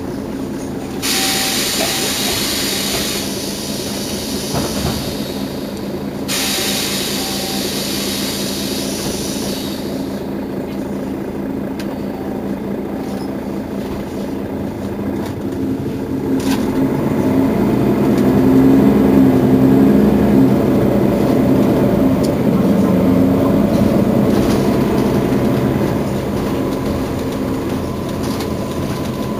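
Mercedes-Benz Citaro city bus: two long hisses of air with short beeps over them in the first ten seconds, then the engine working harder from just past halfway, loudest a few seconds later, as the bus pulls away.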